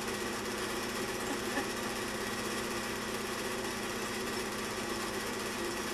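Home-movie film projector running with a steady, fast mechanical clatter.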